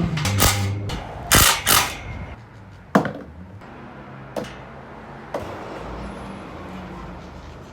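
Knocks and clatter of tools being handled: a few short loud knocks in the first two seconds, a sharp click about three seconds in, and a couple of fainter clicks after.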